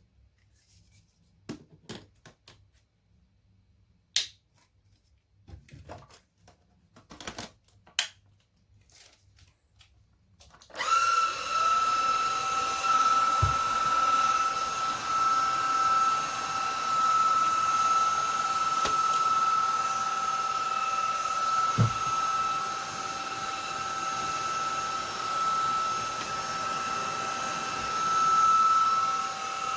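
A few scattered clicks and knocks. About a third of the way in, a cordless stick vacuum's brushless motor switches on and runs steadily with a high whine over airflow noise.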